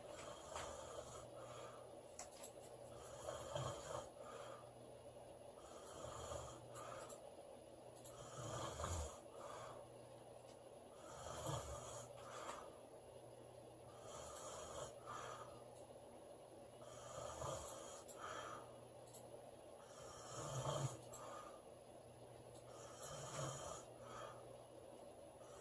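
A woman snoring in her sleep, one rough snore about every three seconds, nine or so in a row.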